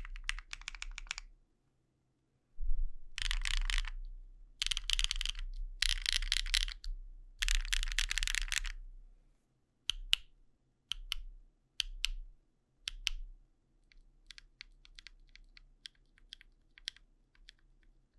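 Mechanical keyboard with Wingtree BM11 tactile switches (polycarbonate housings, UPE stems) on an aluminium plate with no foam, typed on: bursts of fast typing for about the first nine seconds, then single key presses about a second apart, trailing off into lighter, quieter clicks. A full, poppy switch sound with minor ticking.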